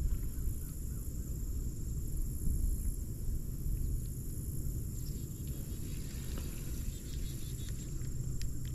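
Insects, crickets or cicadas, keep up a steady high-pitched drone over a constant low rumble, with a few faint ticks near the end.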